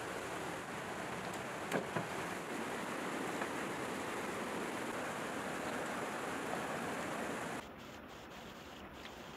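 Shallow stream running over stones, with splashing as rocks are moved by hand in the water and a sharp knock about two seconds in. The water sound drops suddenly quieter near the end.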